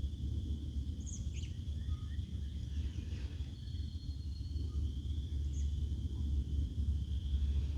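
Birds chirping in short calls a few times, with one thin, steady whistled note near the middle, over a continuous high-pitched drone and a low rumble.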